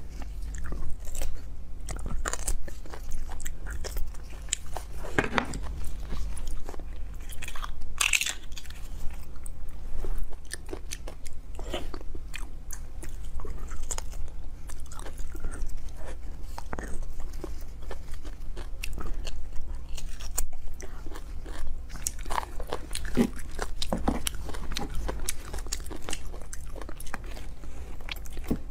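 Chewing and biting, a stream of short irregular mouth clicks, as beef bone marrow in spicy sauce is scooped from the bone with a spoon and eaten.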